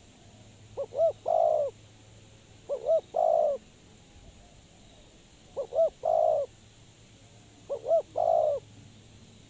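Spotted dove cooing: four repeated phrases about two seconds apart, each two short notes followed by a longer coo.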